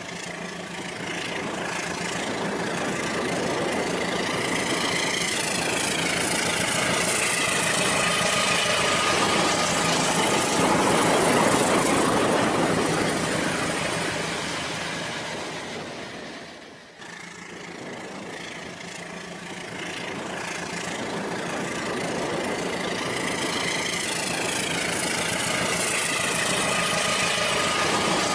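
Rail King toy train running along its plastic track, its motor and wheels growing louder as it nears and passes close about twelve seconds in. The sound drops off suddenly about seventeen seconds in, then builds again as the train approaches once more.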